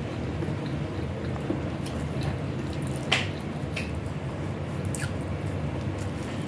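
Eating sounds: a few short, wet mouth clicks and smacks while chewing, the clearest about three seconds in, over a steady low hum.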